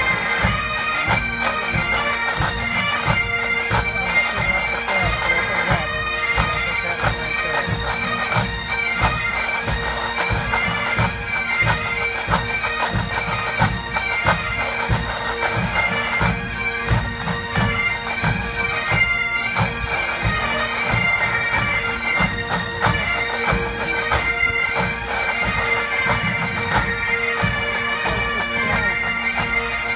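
Massed pipes and drums: many Great Highland bagpipes playing a tune in unison over their steady drones, with the bands' snare and bass drums beating along in a steady rhythm.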